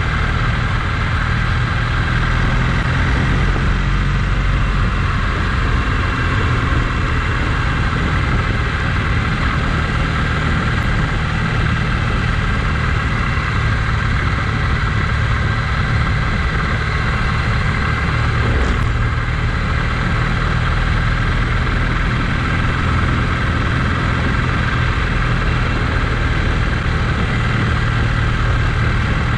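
A vehicle's engine running steadily at an even speed throughout.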